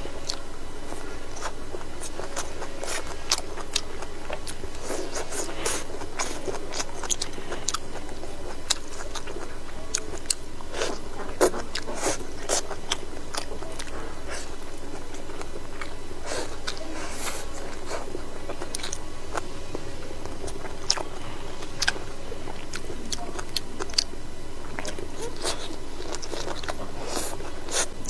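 A person chewing and crunching food close to the microphone, with many short sharp clicks and taps scattered throughout, over a steady low background hum.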